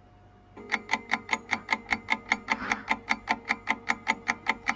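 Countdown-timer ticking sound effect: fast, even clock-like ticks, about five a second, starting about half a second in over a faint steady tone.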